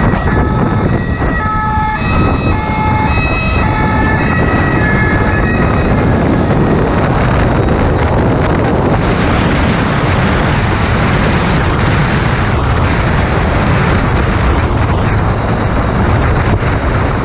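An emergency vehicle's two-tone siren alternating for the first six seconds or so over loud wind rush on a motorcycle rider's helmet-mounted microphone and the bike's running engine. After the siren fades, the wind and engine noise carry on and grow louder about nine seconds in.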